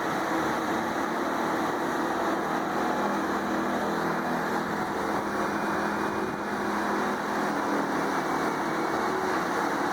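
Large engine-driven wood chipper running steadily, a constant machine drone with no breaks.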